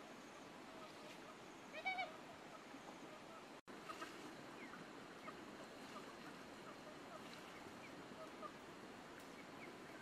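Faint outdoor forest ambience with small scattered bird chirps over a steady hiss; about two seconds in, one short wavering animal call.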